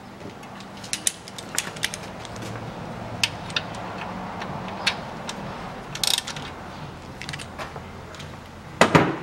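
Screwdriver with a T40 Torx bit unscrewing a car's oil drain plug from the oil pan, with scattered sharp clicks throughout and a louder clatter near the end.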